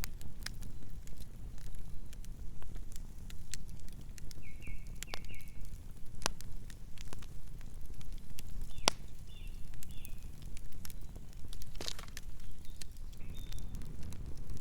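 Campfire crackling, with irregular sharp pops and snaps over a steady low rumble. A few faint, short high chirps come through, about four seconds in, around nine seconds and near the end.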